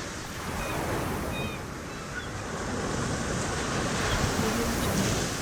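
Ocean surf washing onto a beach, swelling and ebbing, with a few faint seagull calls in the distance.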